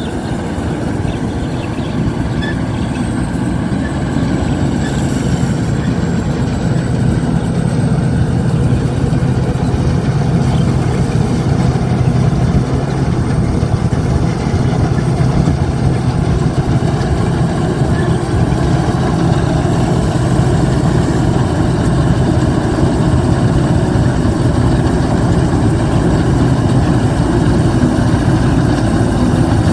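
Locally built Thai rice combine harvester running steadily under load while harvesting, a dense mechanical din over a steady low engine hum, growing slightly louder over the first several seconds.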